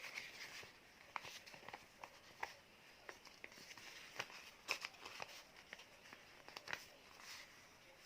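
A paper sheet being folded and creased by hand: soft rustling with scattered sharp crinkles and ticks at an irregular pace.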